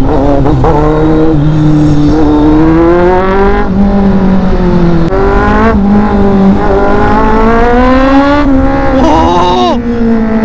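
Benelli TNT 600i inline-four with an aftermarket exhaust accelerating hard through the gears. Its pitch climbs and drops back at each upshift several times, then falls quickly just before the end.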